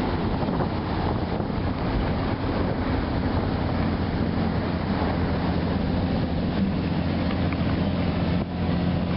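Dive boat's engine running steadily with a low hum, under wind noise on the microphone.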